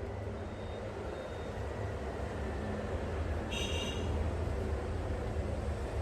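A steady low engine rumble, growing slightly louder, with a brief high-pitched squeak about three and a half seconds in.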